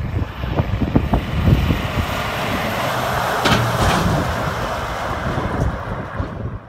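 A RAM pickup truck pulling a heavily loaded hay wagon drives past, its engine and tyre noise swelling to a peak about halfway through and then fading. Gusts of wind buffet the microphone.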